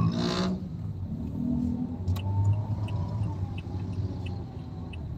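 Car cabin rumble from the engine and road while driving, with a turn-signal indicator ticking evenly, about two to three ticks a second, from about two seconds in.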